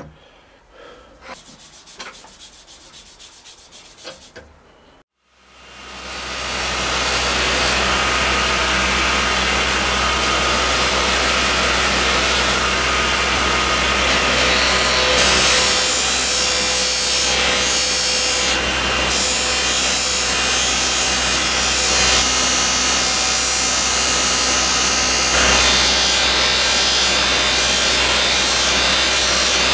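Wood lathe running, with a steady rubbing hiss from something held against the spinning resin-and-banksia-pod blank over a low motor hum. It follows a few light knocks, starts about five seconds in, builds over a second or so and then runs steadily.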